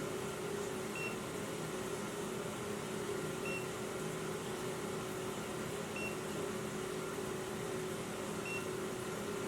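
A carbon monoxide detector giving a short, high beep about every two and a half seconds, four times, over a steady hum.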